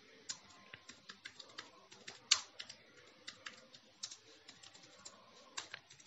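Typing on a computer keyboard: faint, irregular key clicks, with one louder keystroke a little over two seconds in.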